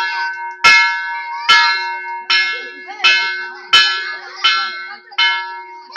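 Brass temple bell rung over and over, with a sharp strike about every three-quarters of a second. Each ring carries on into the next, so the tone never dies away.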